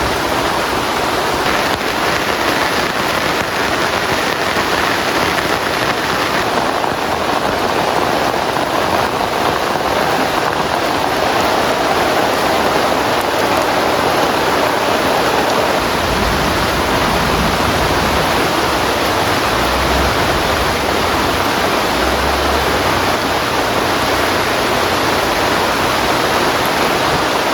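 Heavy rain falling steadily in a loud, even hiss. A deep, low rumble joins in from about halfway through.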